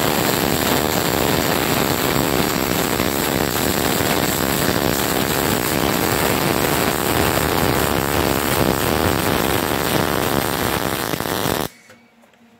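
MIG/MAG welding arc in dip (short-circuit) transfer, 0.8 mm wire at about 22 volts and 140 amps, laying the root run of a vertical-up T-joint. It runs steadily and cuts off suddenly near the end as the arc is broken and the root run is finished.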